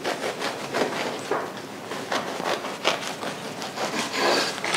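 A knife sawing back and forth through a filled focaccia on a wooden cutting board, in a quick run of short strokes, about two or three a second.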